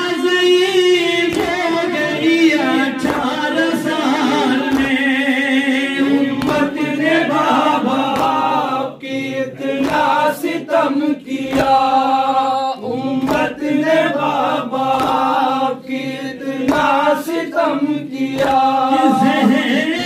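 Group of men chanting an Urdu noha (mourning lament) unaccompanied, a lead voice on a microphone with the others singing along in chorus. Irregular thuds of hands beating on chests (matam) sound through the chant.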